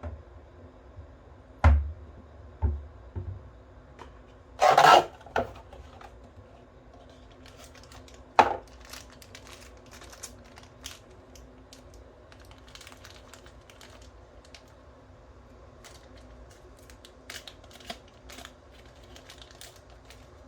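Toy Beretta M9 replica pistol being handled. There are a couple of low knocks, then a loud rasping clack lasting about half a second about five seconds in, a sharp click a few seconds later, and a scatter of small light clicks.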